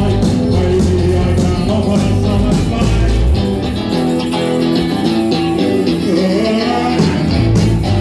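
Live rock band playing loudly through a PA: electric guitar, bass guitar, drums and vocals. The deep bass drops away for a few seconds mid-way and comes back near the end.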